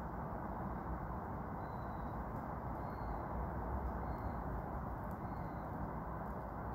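Steady low outdoor background noise, with a small bird's short high call repeated four times about a second apart.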